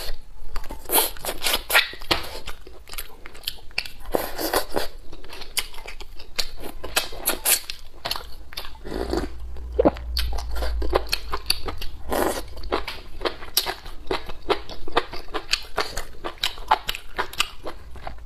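Close-miked eating: a person biting and chewing chicken meat off the bone, with many quick, wet mouth clicks and smacks and a few longer smeared mouth sounds.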